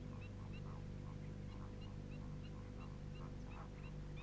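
Faint bird calls: a short, high chirp repeated evenly about two or three times a second, with softer, lower calls behind it, over a steady low hum.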